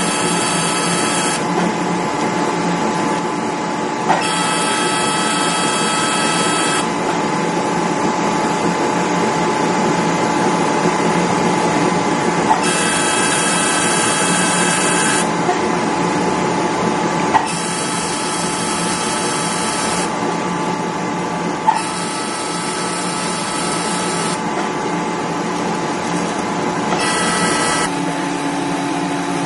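Skin-resurfacing laser machine running with a steady hum. Several times it gives a high buzzing tone for two to three seconds at a time, most of them starting with a click, as the laser fires in bursts on the skin.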